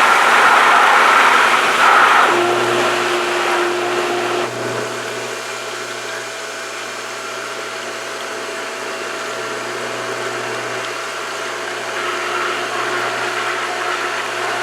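Pool pump motor running steadily, with a broad rush of water and air as it primes after the restart. The louder rush drops away about four and a half seconds in, and a steadier hum carries on.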